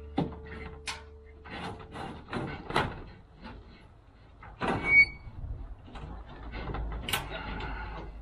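Handling noises: a run of knocks, clicks and rustles at irregular intervals, loudest a sharp knock about five seconds in with a brief squeak.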